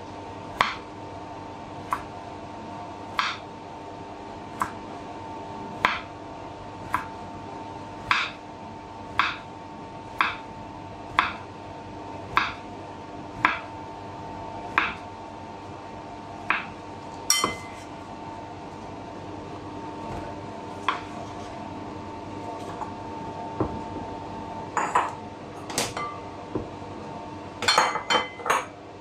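A kitchen utensil striking a hard surface, sharp clinks about once a second, with a quicker run of clinks near the end, over a steady background hum.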